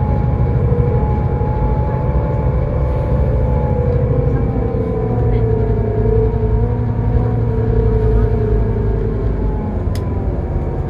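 Scania K320IB bus running, heard from inside the cabin: a steady low diesel rumble with a whine from the drivetrain whose pitch drifts as the bus changes speed.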